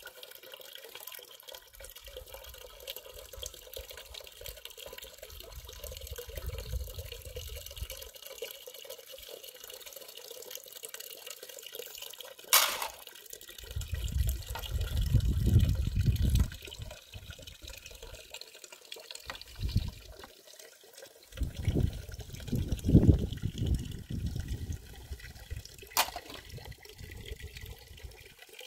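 Water running from the tap of a metal storage tank into a metal pot during hand dish-washing, a steady splashing hiss. Louder low rumbles come and go several times, and two sharp clicks stand out, one about halfway through and one near the end.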